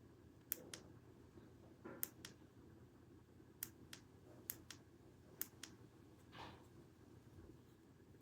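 A small switch or button clicked five times, each press a sharp double click about a quarter second apart, with a single click at the very end.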